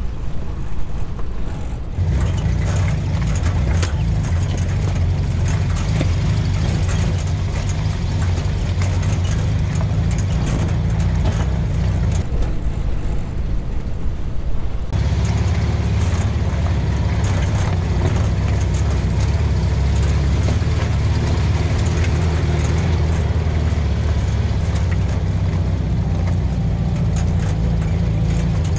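Air-cooled flat-four engine of a vintage split-window VW bus running steadily as the bus drives, with light knocks and rattles over it. The engine note changes abruptly about two seconds in and again about halfway through.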